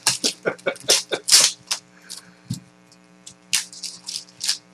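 Foil wrappers of trading-card packs crinkling and tearing as they are opened and the cards handled. There is a quick run of sharp crackles in the first two seconds, then a few scattered ones.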